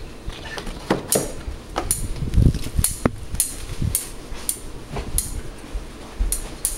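Irregular sharp clicks and clinks, about two a second, from metal hand-mixer beaters being handled.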